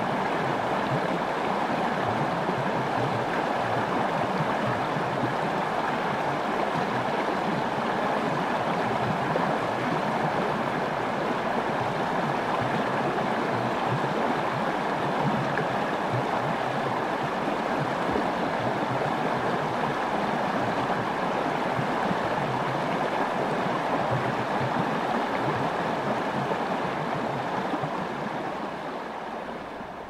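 River rapids rushing in a steady, dense roar of white water, fading out near the end.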